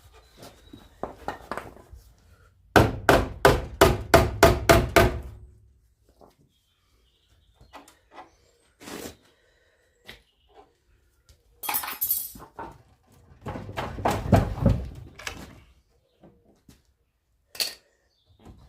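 Hammer blows on the spot-welded steel front panel of a Trabant 601, struck against a second hammer held behind it as a dolly to straighten the bent corner. A quick run of about ten strikes comes early, at roughly four a second. Scattered knocks and a short scrape follow, then a second run of blows and a last click near the end.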